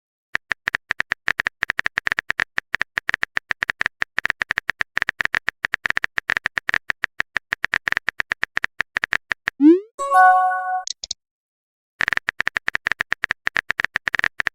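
Rapid, irregular clicks of a phone keyboard typing sound effect, broken about ten seconds in by a short rising swoop and a pitched message-notification chime; then the typing clicks start again.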